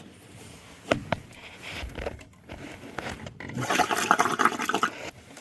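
Water gurgling and splashing out of a furnace condensate drain tube as the clog in it clears, loudest in the last couple of seconds. A couple of sharp clicks about a second in.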